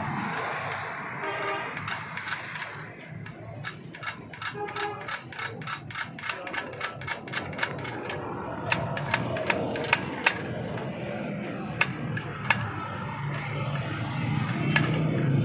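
Toyota Hilux Revo rear drum brake being worked with a screwdriver at the shoe adjuster: a quick, even run of metallic clicks, about five a second, for some four seconds, then slower single clicks. This is typical of ratcheting the brake-shoe adjuster to set the shoes.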